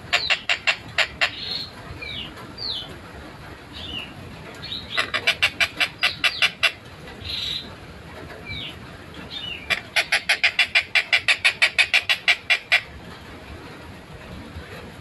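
Collared kingfisher (tengkek buto) calling: three runs of fast, evenly repeated harsh 'kek' notes, about six or seven a second, the last run the longest, with short rising chirps in the gaps.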